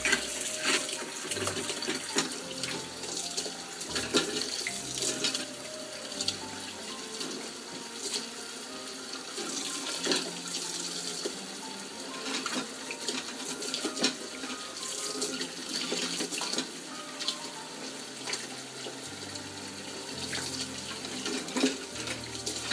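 Water running from a tap into a sink, a steady splashing hiss with frequent small splashes. Soft background music runs underneath.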